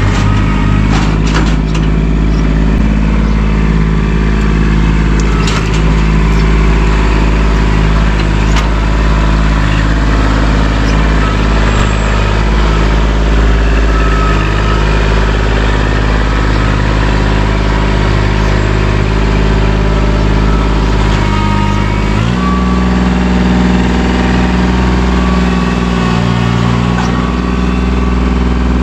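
Kubota tractor's diesel engine running steadily as the tractor drives back and forth; about 22 seconds in the engine note shifts abruptly to a different pitch.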